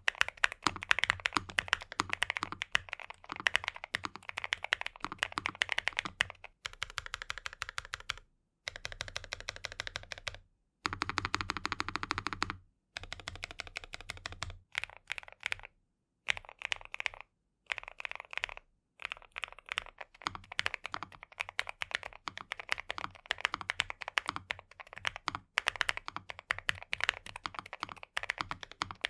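Fast typing on a NuPhy Nos75 low-profile mechanical keyboard with lubed Gateron NuPhy N1 Nano switches: a dense stream of crisp key clacks. Several passages are separated by brief moments of silence.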